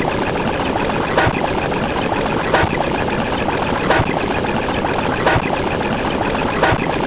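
A steady rushing noise with a short sharp click repeating evenly, about once every second and a half.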